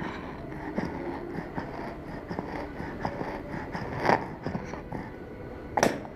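A young child breathing noisily with a wheeze on breathing out, a sign of wheeze rather than stridor. Two short, louder sudden sounds come about four and six seconds in.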